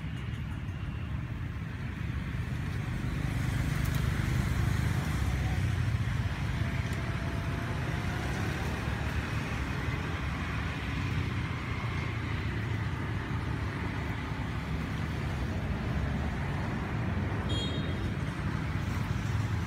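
Steady low rumble of outdoor background noise, fairly constant throughout.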